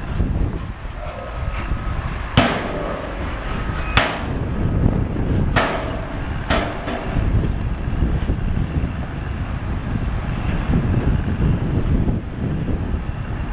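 Tatra Jamal dump truck's diesel engine running under a steady low rumble while the raised tipper body empties its soil, with four loud metallic clanks in the first half as the body and tailgate knock.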